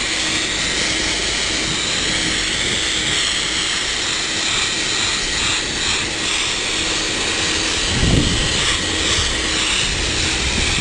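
High-velocity dog dryer (a 'blaster') blowing steadily: a rushing of air with a faint motor whine, and a brief louder low rumble about eight seconds in.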